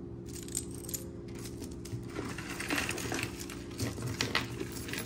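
Costume jewelry pieces clinking and clicking lightly as they are handled and set down, with soft rustling; the clicks come in a cluster during the second half.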